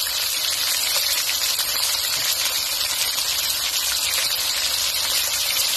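Pork and chicken pieces sizzling in hot oil in a nonstick frying pan: a steady hiss with fine crackling as the meat browns.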